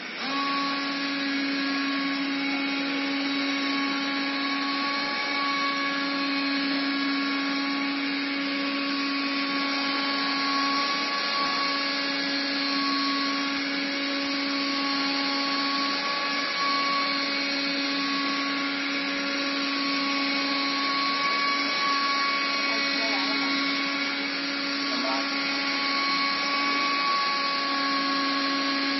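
CNC oscillating knife cutting machine running as it cuts circles from a gasket sheet: a steady machine hum with a higher whine over it, the hum dropping out briefly a few times.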